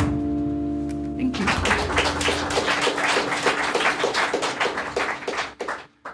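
The final chord of an acoustic guitar and bass guitar rings out for about a second, then an audience claps for about four seconds before the sound cuts off.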